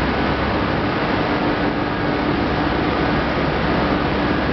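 Corn wet-milling plant machinery running: a loud, steady, even machine noise with a faint constant hum.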